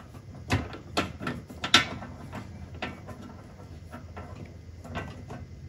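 Small metallic clicks and taps of screws being started by hand into an aluminum skid plate under a car. They come in a scattered cluster in the first couple of seconds, then a few more near the end.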